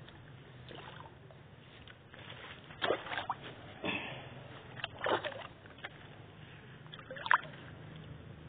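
Water splashing and sloshing in a few short, sudden bursts, about four in all with the loudest near the end, as a hooked fish thrashes at the surface close to the bank while it is brought in.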